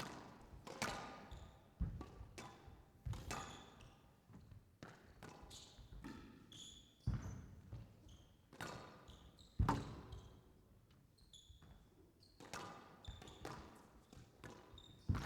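A squash rally: the ball cracks off the rackets and the court walls at irregular intervals of about one to two seconds, with short high squeaks from shoes on the court floor between the shots.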